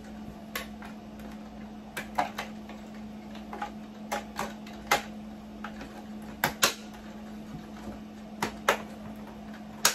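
Plastic clicks and knocks of a Bissell ProHeat 2X Revolution carpet cleaner's carry handle being worked into the slots on its base: irregular taps with a few sharper snaps about halfway through, near the end and just before it stops. A steady low hum runs underneath.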